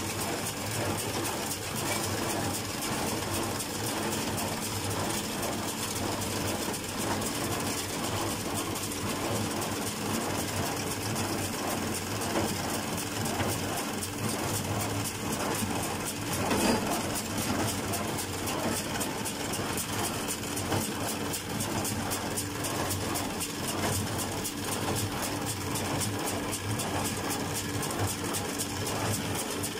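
Fendt 310 tractor engine running steadily while it drives a John Deere 349 small square baler through the PTO shaft, the baler picking up and pressing hay with an even, fast mechanical beat. One louder knock comes about 17 seconds in.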